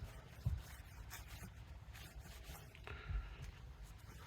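Faint scuffing of a wet wipe being rubbed over a truck's painted body panel, in uneven strokes, with a couple of soft bumps about half a second and three seconds in.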